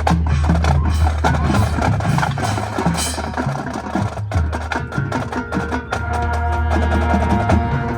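Marching band playing, with quick percussion strikes over sustained low tones and held notes.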